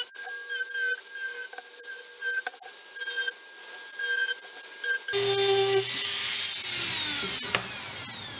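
Dremel rotary tool with a sanding drum running at high speed, its whine wavering as it sands the edges of a pine piece. About five seconds in the sound changes, and near the end the whine falls steadily as the motor winds down.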